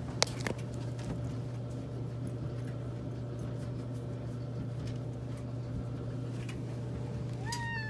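Steady low hum with a few sharp clicks near the start, the loudest about a quarter second in. Near the end a cat gives a short meow that rises and then falls.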